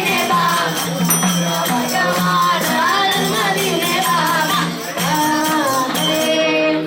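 A Hindu devotional bhajan: singing over a steady held low note, with jingling hand percussion, stopping abruptly at the end.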